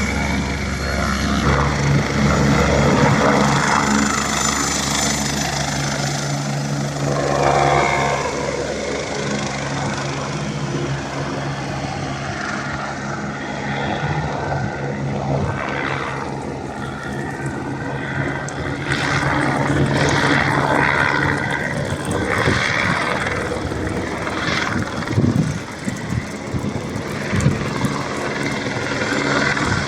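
Helicopter running, its engine and rotor giving a steady low hum under a wash of noise.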